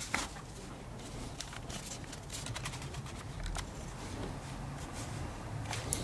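Faint scattered clicks and light taps from the Xiaomi G11 vacuum's floor brush head being handled, its plastic parts knocking, over a low background hum.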